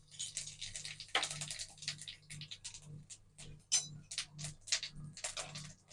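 Cumin seeds crackling and sizzling in hot oil in an aluminium kadhai, a scatter of small irregular pops as the tempering begins, over a faint pulsing low hum.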